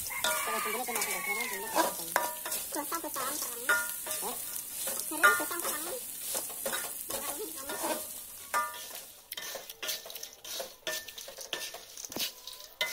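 Grasshoppers and dried red chillies stir-frying in a metal wok: oil sizzling as a metal spatula scrapes and clinks against the pan, getting quieter after about nine seconds. Chickens cluck in the background.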